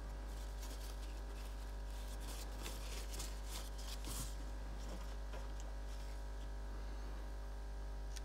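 Faint rustles and light crackles of hands handling small aquarium plant cuttings on a table, mostly in the first half, over a steady low electrical hum.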